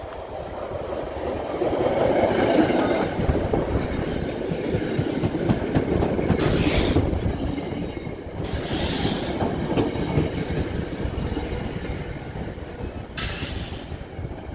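A commuter train's single-level passenger coaches roll past close by, wheels rumbling and clacking over the rail. The sound swells over the first two seconds as the cars reach the platform, and a few brief high-pitched squeals or hisses break through it.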